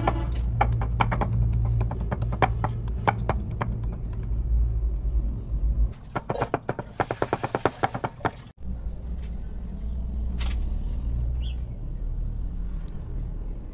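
A large knife chops minced lemongrass on a thick wooden cutting board in quick, irregular strokes. About halfway through, garlic is chopped the same way in a faster, even run of chops. The chopping then stops and a steady low rumble is left, with a few light ticks.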